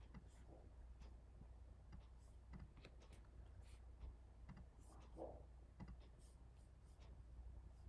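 Near silence, with faint, irregular clicks of a computer mouse over a low steady hum.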